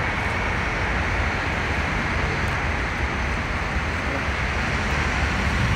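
Steady city road traffic noise: a continuous rumble and hiss from buses and cars on a busy street, with no single event standing out.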